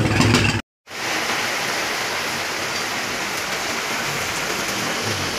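Steady heavy rain falling, coming in abruptly after a brief cut to silence.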